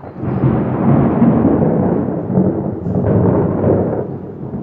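Thunder: a sudden crack that rolls straight into a loud rumble, holding for about four seconds before dying away near the end.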